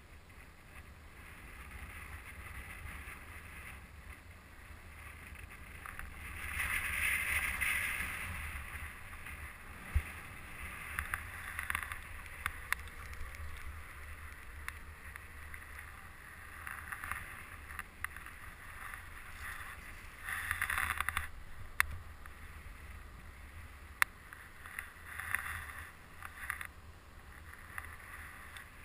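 Wind rumbling on an action camera's microphone during a chairlift ride, with rustling swells of noise now and then and a few sharp clicks.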